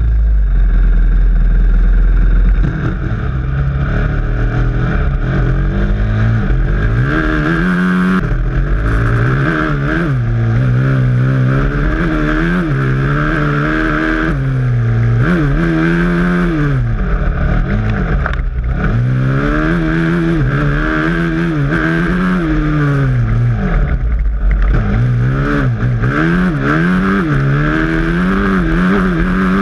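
Honda dirt bike's single-cylinder four-stroke engine under way, its revs rising and falling every second or two as the throttle is worked.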